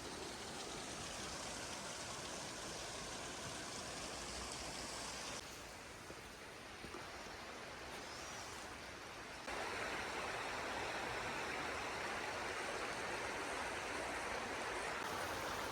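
Steady rushing of flowing river water. The level changes abruptly about five seconds in and gets louder near ten seconds in.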